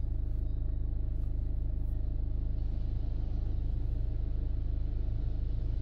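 A BMW F10 idling: a steady low rumble with a faint even hum above it.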